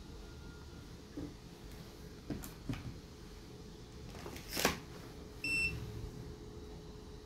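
Handling clicks and knocks on a workbench, the loudest about four and a half seconds in, followed by a single short, high electronic beep from a digital meter.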